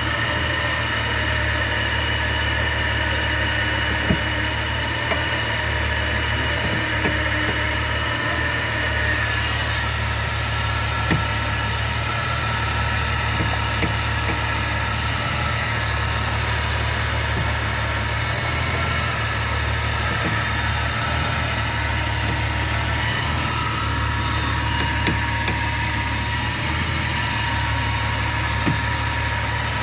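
A 2004 Jeep Grand Cherokee WJ's engine idling steadily, with a few sharp knocks about four seconds in, about eleven seconds in and near the end.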